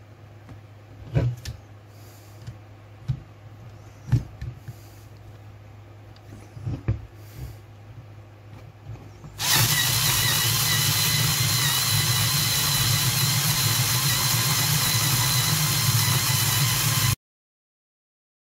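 Electric screwdriver's motor whirring steadily as it drives a manual burr coffee grinder, grinding coffee beans; it starts about halfway through and cuts off abruptly to dead silence near the end. Before it starts there are a few light clicks and knocks of the parts being fitted together.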